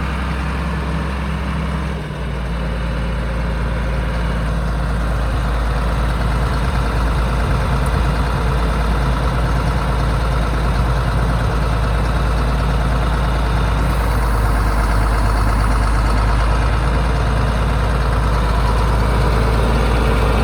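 John Deere 4640 tractor's six-cylinder diesel engine running steadily, its note shifting with a brief dip in level about two seconds in.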